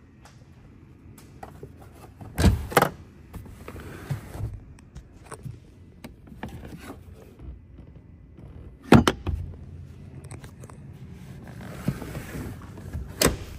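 Clunks and clicks of a pickup's rear-seat fittings being handled inside the cab, over a low steady hum. The loudest knocks come as a pair about two and a half seconds in, one at about nine seconds, and one just before the end.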